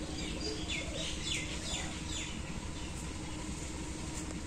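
A bird calling: a quick run of short, falling chirps over the first two seconds or so, then stopping, over steady low outdoor background noise.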